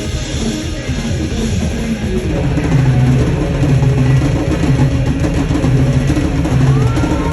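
Rock band playing an instrumental passage: drum kit, bass and guitar, with gliding pitched notes entering near the end.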